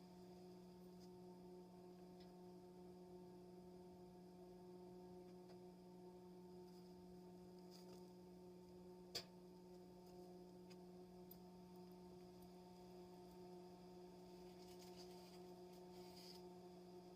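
Near silence: a faint steady hum, with a single short click about nine seconds in.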